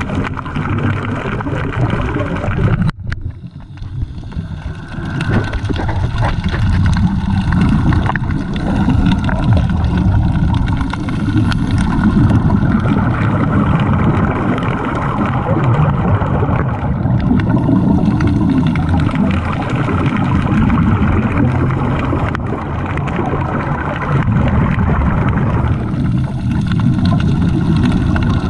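Underwater recording: a steady low rumble with the drone of a boat engine carried through the water.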